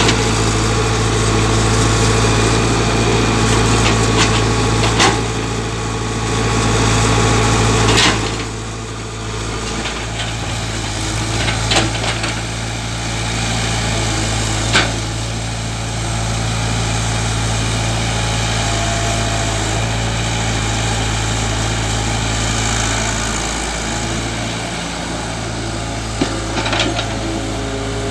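Tata Hitachi EX70 excavator's diesel engine running steadily as it digs, with a handful of sharp knocks from the digging now and then.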